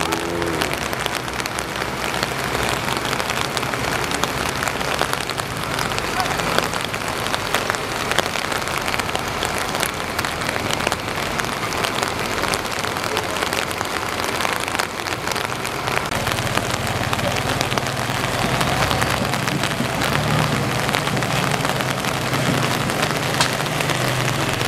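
Steady rain with a dense pattering of drops; a low steady hum joins about two-thirds of the way in.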